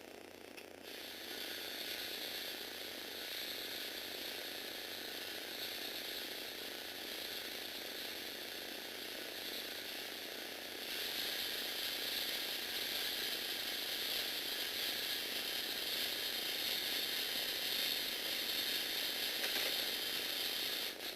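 Lego Technic earthquake shaking-table mechanism running: plastic gears and motor giving a steady ratcheting, rattling whir. It starts about a second in, gets louder about halfway through, and stops at the end.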